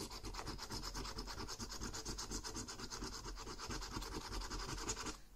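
A coin scraping the scratch-off coating on a €1 All Cash scratchcard in rapid back-and-forth strokes, which stop shortly before the end.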